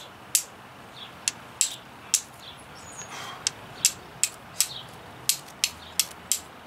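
Hand-forged steel striker struck repeatedly against a flint, sharp short clicks about twice a second, to throw sparks onto charcloth held on the flint.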